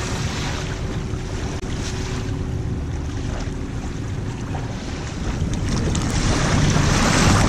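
Wind buffeting the microphone over small waves lapping on a sandy shore, the wind noise growing stronger about five seconds in.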